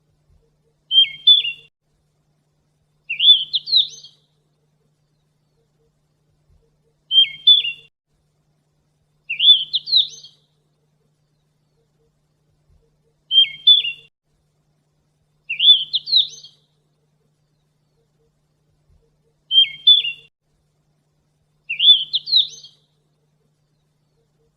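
Sikatan emas, a Ficedula flycatcher, singing the same two-part phrase four times, about every six seconds: a short high call, then about two seconds later a quick run of rising, slurred notes.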